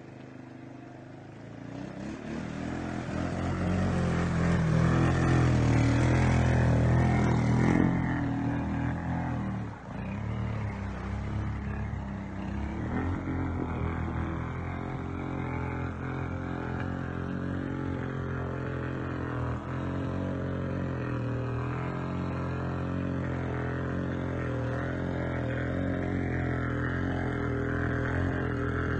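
ATV engine running in a mud hole, louder for several seconds near the start, dipping briefly, then running steadily.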